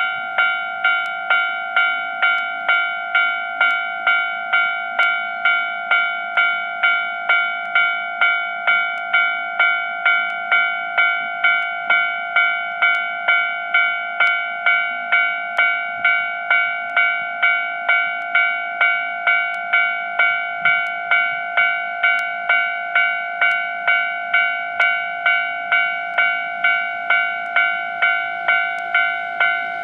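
Japanese level-crossing warning bell ringing, one clanging tone repeated steadily about twice a second, the signal that a train is approaching the crossing.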